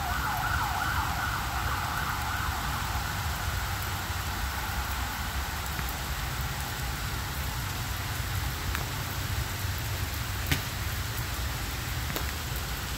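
An emergency-vehicle siren wailing, rising and falling over and over, loudest at first and fading out by about halfway. Steady rain hisses throughout.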